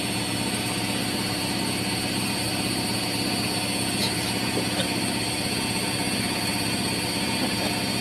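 Front-loading washing machine spinning with a steady mechanical hum, strong enough that the basin and cat on top are expected to be shaken off.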